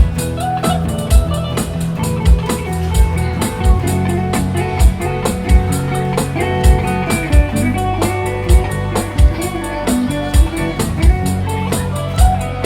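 Live band playing an instrumental passage: guitar over a steady drum-kit beat with sustained low notes underneath.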